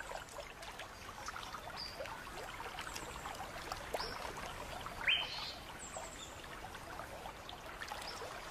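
Water trickling and lapping in a creek, with a few short high chirps, the clearest a rising one about five seconds in.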